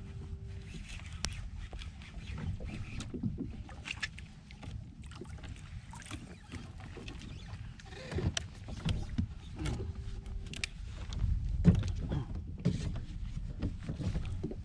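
Wind and water rumble on a kayak, with scattered knocks and clicks from gear being handled against the hull; the loudest knock comes a little before the end. A short, steady low tone sounds twice, at the start and about ten seconds in.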